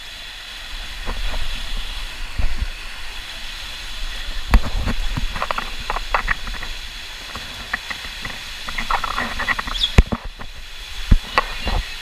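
A rider on an inner tube sliding down an enclosed water slide flume: rushing water and spray make a steady hiss, broken by knocks and bumps as the tube hits the slide walls, with sharp thuds about four and a half seconds in and the loudest about ten seconds in.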